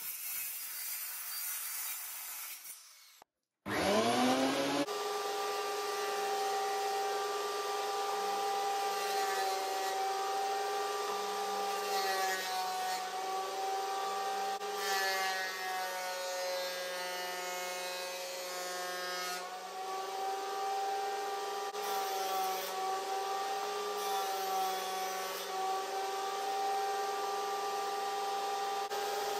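A sliding miter saw cutting through a wooden board for about three seconds. A jointer-planer's motor then spins up, rising in pitch, and runs with a steady whine while a board is planed across its cutterhead.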